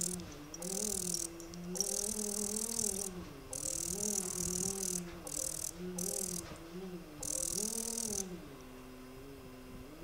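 Phacoemulsification machine's feedback tone: a pitched hum whose pitch rises and falls as the aspiration vacuum builds and releases, with bursts of high hiss switching on and off. Near the end the hiss stops and the tone settles lower and steady.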